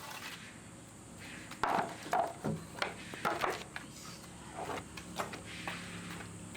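A handful of scattered light knocks and clatters, spaced irregularly.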